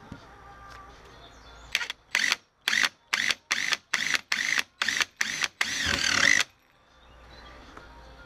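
Power drill with a small pilot bit run in about nine short trigger bursts, then a slightly longer run that cuts off suddenly, boring a pilot hole through a paper template into the front wing's sheet metal. Each burst is a brief motor whine.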